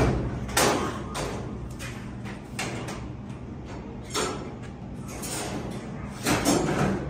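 Plastic pet carrier bumped and pushed across the floor by a dog's head. It gives a thump at the start and then several short scraping, rustling sounds spaced a second or two apart.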